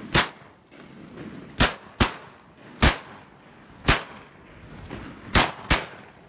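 Shotguns firing seven shots in about five and a half seconds, irregularly spaced, some in quick pairs.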